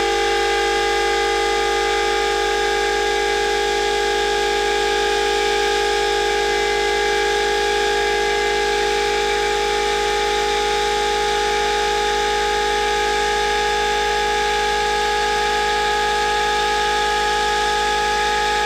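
Muller Motor replication, a pulse-driven magnet motor, running under its own power at about 3000 RPM. It gives a steady, unchanging whine made of several pitches at once.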